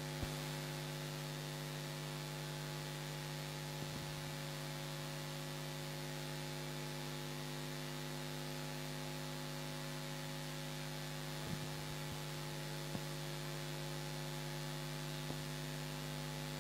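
Steady electrical mains hum with a faint hiss underneath, broken by a few faint ticks.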